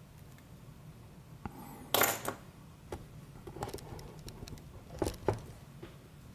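Small metal parts of a disassembled Abloy DiskLock disc-detainer lock clicking and clinking as they are handled, with a louder clatter about two seconds in and two sharp clinks about five seconds in.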